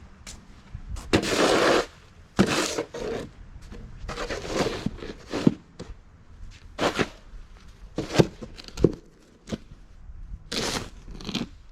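Snow shovel scraping and crunching snow off icy steps in a string of short, uneven strokes, about one a second, with a few sharp knocks among them.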